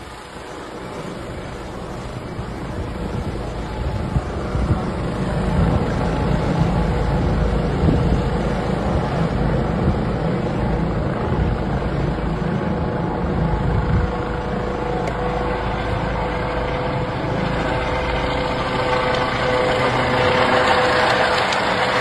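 Polish air-ambulance (LPR) helicopter, a Eurocopter EC135, flying low overhead: rotor and turbine noise that grows louder over the first few seconds, then holds steady, with a whine that strengthens near the end as it comes closest.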